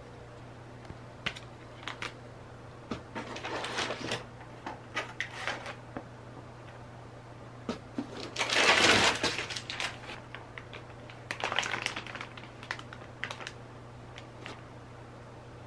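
Plastic food packaging rustling and crinkling as packaged groceries are handled and set down, with scattered light clicks and taps; the loudest rustle comes about nine seconds in, another a few seconds later. A faint steady hum lies underneath.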